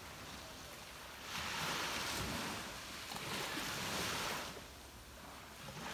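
Small waves breaking and washing up a beach. One wash swells up about a second in and fades away after about three seconds.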